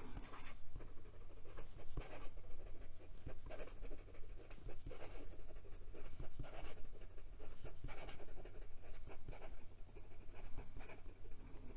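Jinhao 85 fountain pen's thin extra-fine steel nib scratching across lined notebook paper in quick, irregular cursive strokes. It is a scratchy-writing nib.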